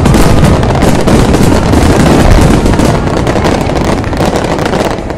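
Fireworks barrage: many aerial shells bursting in quick succession, merging into one continuous mass of booms and crackling that eases off slightly near the end.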